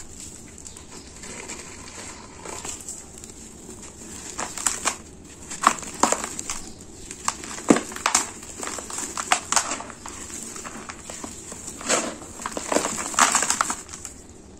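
Gloved hands squeezing and crumbling dry, gritty sand-cement powder and small lumps in a plastic tub: irregular crisp crunches and crackles that come in clusters, loudest about halfway through and again near the end.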